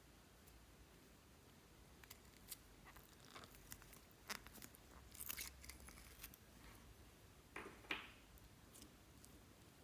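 Slime being handled, with faint scattered sticky crackles and small clicks starting about two seconds in and a few louder pops near the middle and toward the end.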